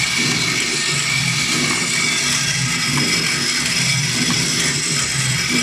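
High-speed automatic flat-die thread rolling machine running steadily, rolling threads on M10 bolts fed from its vibratory bowl feeder. The sound is a constant loud mechanical din with a steady high whine and a low, uneven pulsing churn underneath.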